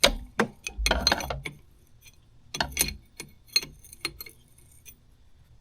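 Hand wrench clinking and knocking against the metal hydraulic hose fittings of an excavator's swing motor: a string of irregular sharp clicks and clanks, stopping about five seconds in.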